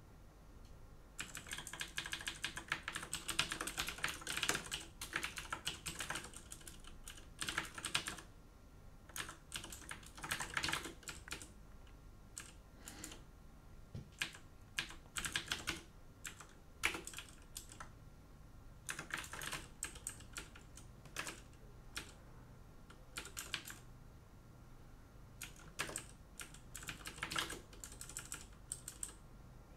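Typing on a computer keyboard: quick runs of key clicks in bursts of a few seconds, broken by short pauses.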